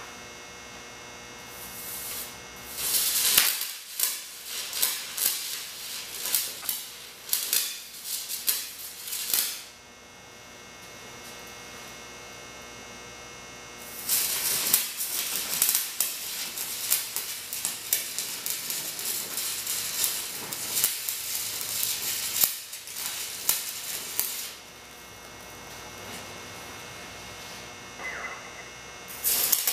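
Stick-welding arc from a welding rod run off two car batteries joined by jumper cables, crackling and sputtering as it lays beads on steel brake rotors: two runs of about eight and ten seconds, and a brief strike near the end. A steady low hum fills the gaps between runs.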